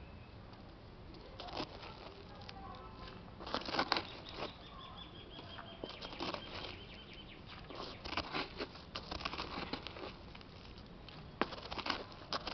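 A hand digging and scraping through potting soil around ginger rhizomes in a small pot: irregular bursts of rustling and crumbling soil, loudest about four seconds in and again near the end.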